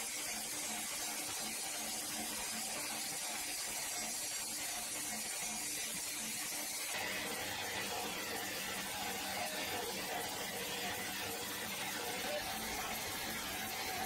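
Sawmill band saw machinery running steadily, a hiss over a faint regular pulsing hum. About halfway through the sound changes abruptly to a lower rumble with a steady hum.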